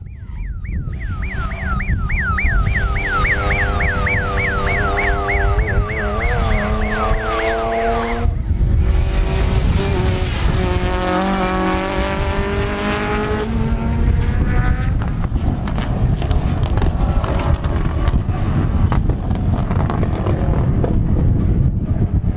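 Rally cars' engines running and revving at a circuit, with heavy wind noise on the microphone. For the first eight seconds a high falling chirp repeats about three times a second over the engine note. After an abrupt change the engines rise and fall in pitch, then give way to a dense rushing noise with low rumble.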